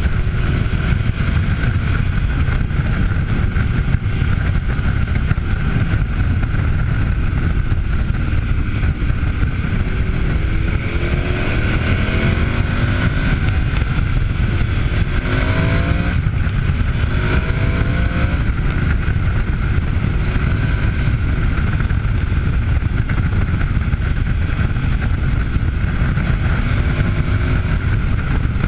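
Wind rushing over the microphone with a KTM adventure motorcycle's V-twin engine running underneath; the engine note rises in pitch under acceleration a few times around the middle.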